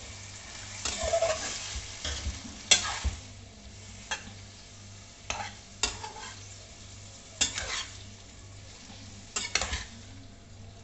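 Metal spatula scraping and turning spiced vegetables in a metal kadai, with a steady low sizzle underneath. The scraping strokes come irregularly, every second or two.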